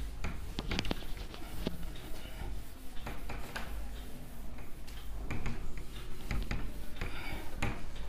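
A cloth duster rubbed across a whiteboard, wiping off marker writing in repeated short strokes.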